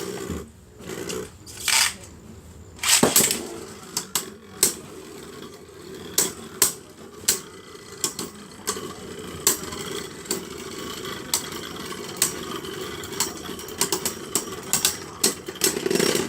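Two Beyblade Burst spinning tops, Victory Valkyrie and Storm Spriggan, launched into a plastic stadium with a loud clatter about three seconds in, then a steady whirring as they spin, broken by many sharp clicks as they strike each other.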